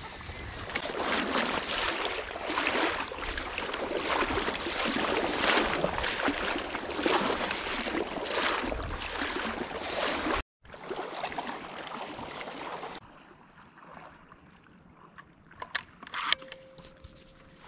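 Water splashing and swishing as someone moves through shallow wetland water and reeds. It cuts off suddenly about ten seconds in, leaving much quieter water noise and a few faint clicks.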